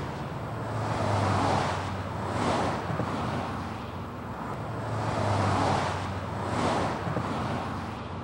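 Road traffic: several vehicles passing one after another, about four swells of tyre and engine noise that rise and fade.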